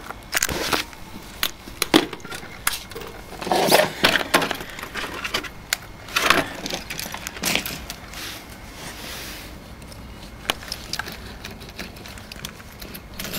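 Irregular knocks, clatters and rustling from a hand-held RC monster truck and its plastic K'nex roller dyno being handled, with no engine running. The loudest knocks come about two, four, six and seven and a half seconds in.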